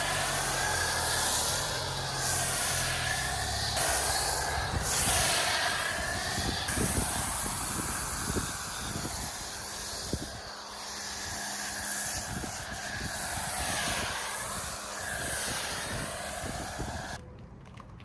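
Water spray hissing against a car's bodywork during a wash, its tone sweeping as the spray moves over the panels, then cutting off suddenly near the end.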